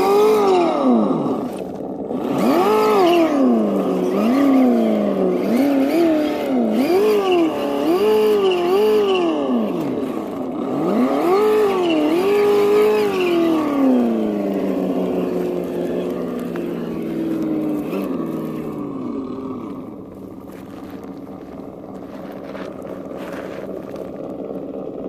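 ESS-One engine sound simulator on an Axial SCX10 II Trail Honcho RC crawler, playing a simulated truck engine. It revs up and down over and over with the throttle, then settles about halfway through to a steadier, quieter idle.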